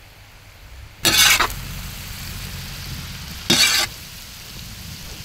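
Masala-marinated prawns frying in hot oil on a tawa: a loud burst of sizzling about a second in settles into steady frying, and a second loud burst of sizzle comes about two seconds later.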